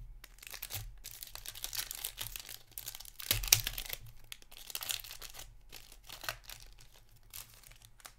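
Foil wrapper of a hockey card pack being torn open and crinkled by hand: a run of crackling, loudest about three and a half seconds in.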